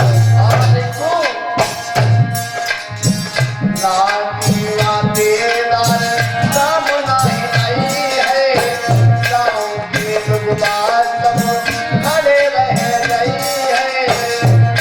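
Instrumental music of a devotional folk song: tabla-style hand drumming with deep drum beats under a gliding melody line.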